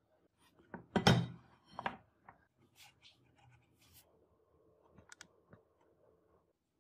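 Metal workpiece handling: a sudden clatter of steel knocking about a second in and again near two seconds, followed by faint scratching and light ticks of a marking tool tracing along the edge of a steel template on painted steel stock.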